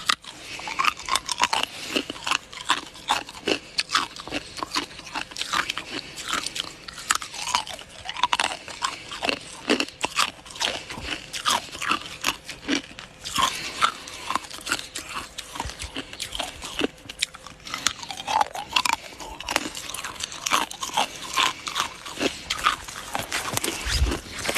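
A person biting and chewing frozen ice close to the microphone: a long, fast run of sharp crunches.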